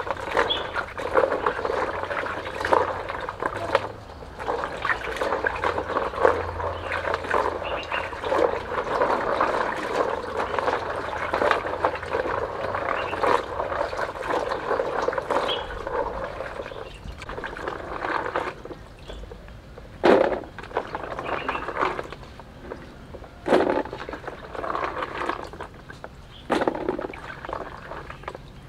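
Hands swishing and rubbing something in water in a plastic basin: a continuous sloshing for about the first eighteen seconds, then three separate louder splashes a few seconds apart.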